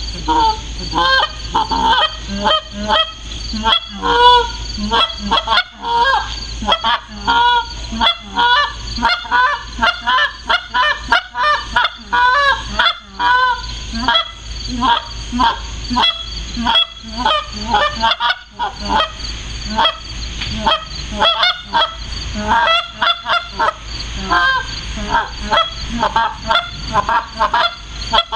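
Tim Grounds Pro Super Mag goose call, a bird's-eye maple short-reed call, blown in a long, fast run of short honks and clucks, several a second, each note breaking sharply in pitch, with a couple of brief pauses.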